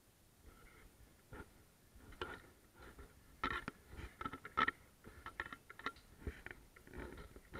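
Footsteps crunching and scraping over grit and debris on a floor, irregular steps with a couple of sharper knocks about three and a half and four and a half seconds in.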